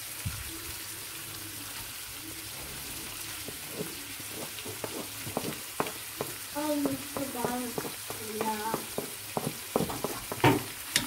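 Minced beef sizzling in a frying pan, and chopped onions being scraped off a plastic cutting board into it. From about four seconds in there are many short knocks and scrapes of the board against the pan.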